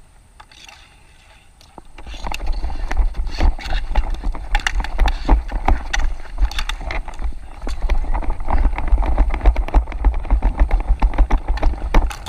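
A dek hockey player running on plastic sport-court tiles, heard close from a body-worn GoPro: quick footfalls and clattering knocks under a heavy rumble of wind and motion on the microphone, starting about two seconds in.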